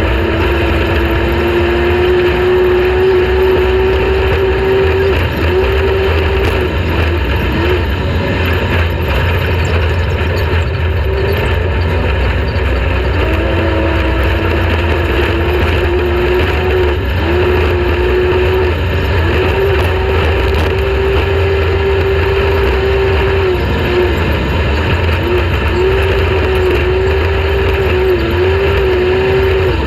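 Off-road race vehicle's engine running hard at high, nearly steady revs over a deep rumble. The pitch dips briefly about seven seconds in and again around twelve seconds in, then climbs back and wavers near the end.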